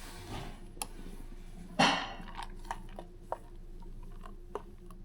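Light clinks and taps of a milk pitcher and coffee cup as steamed milk is poured into espresso, with one brief louder noise about two seconds in.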